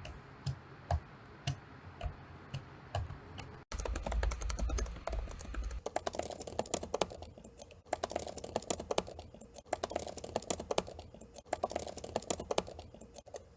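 Computer keyboard keys clicking: single presses about two a second, then after a cut, fast typing in bursts with short pauses between them. A low hum sits under the typing for a couple of seconds just after the cut.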